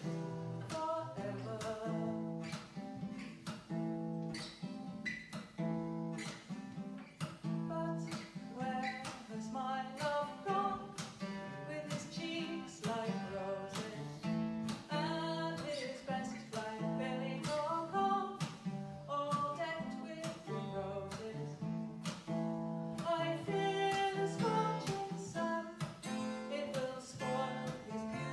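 Live English folk music: an acoustic guitar strummed in a steady rhythm, with a melody line carried above it.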